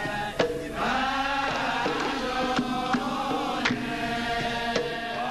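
Background music: voices chanting a held, wavering melody over a drum struck about once a second.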